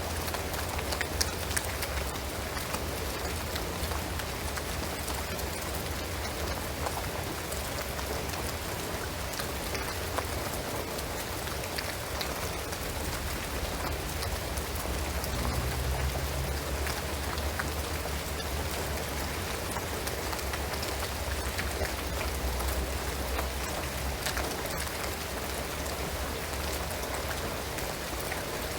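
Steady rain falling on a shingled roof and pine trees, a dense even patter of drops with scattered sharper drips, over a low rumble.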